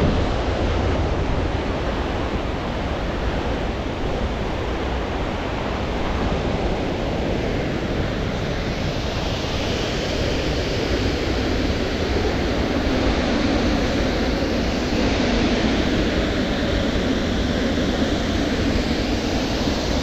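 Waterfall rushing steadily, a dense even hiss of falling water with a low rumble beneath. The hiss of the spray grows brighter about halfway through.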